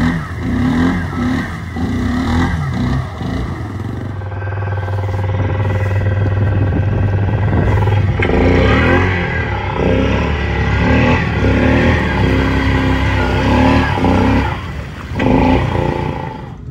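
Off-road vehicle engine running and revving in mud: uneven revs at first, a steady low drone for a few seconds, then harder revving with rising and falling pitch from about halfway through.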